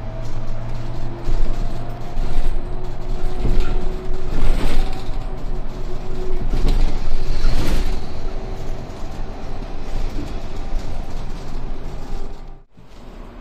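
Inside a moving trolleybus: steady running noise with a few faint steady hum tones, swelling louder twice around the middle, then dropping off suddenly near the end.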